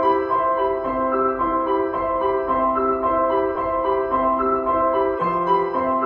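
Background piano music: a gentle melody of repeating notes at an even pace.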